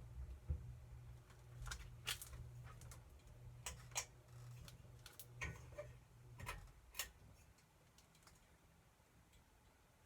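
Litex Signet Deluxe ceiling fan running: a faint low hum with scattered, irregular ticks and clicks. The hum drops away about two-thirds of the way through.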